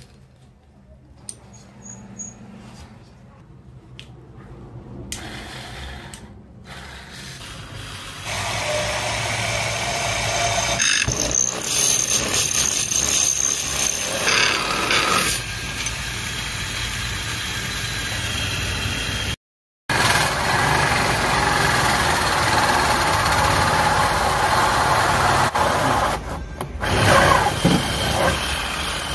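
Homemade electric drill driven by a Toyota power-steering motor: a few quiet clicks of handling, then from about eight seconds in the motor runs loudly while the bit bores into wood. After a brief break it runs again, a hole saw cutting through plastic.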